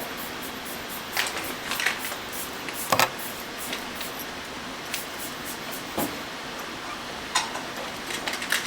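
Scattered light clicks and taps, about seven of them at irregular intervals, the loudest about three seconds in, over a steady background hiss of room noise.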